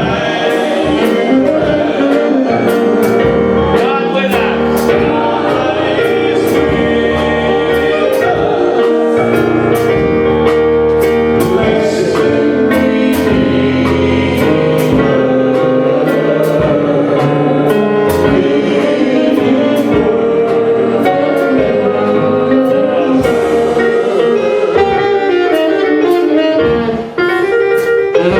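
Gospel worship music: singing over instrumental accompaniment with a steady drum beat, with a brief drop near the end.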